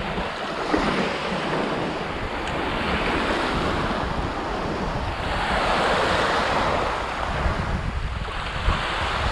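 Small waves washing onto a pebble beach, with wind buffeting the microphone. The wash swells up about six seconds in, then eases.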